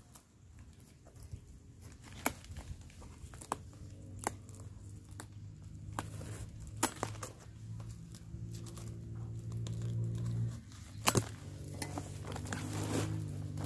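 Plastic crinkling and scattered sharp clicks and knocks as a trap or bag is handled on the ground, the loudest clicks about eleven seconds in. Under it a steady low hum grows louder through the second half.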